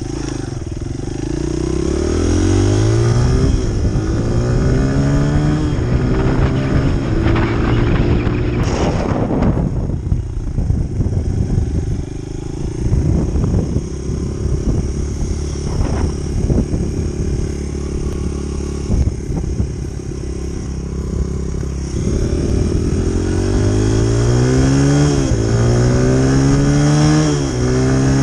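Honda CRF100F dirt bike's small single-cylinder four-stroke engine accelerating through the gears, its pitch rising and dropping back at each upshift. It eases off in the middle, then pulls up through the gears again near the end.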